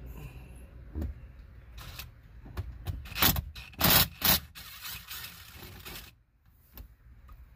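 A screwdriver bit on a long extension working a screw in plastic dashboard trim: scattered clicks and scrapes, with a few loud rasping strokes near the middle and a rougher stretch after them before it goes quieter.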